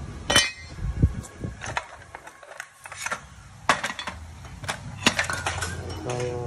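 Loose metal motorcycle engine parts clinking and knocking in a parts tray as they are moved: a dozen or so sharp, separate clinks with a short ring, irregularly spaced. A low hum comes in near the end.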